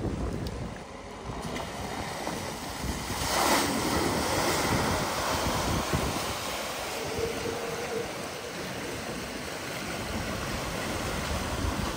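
Floodwater rushing and surging around a van wading through a flooded ford, with a loud surge of splashing about three and a half seconds in. Wind buffets the microphone.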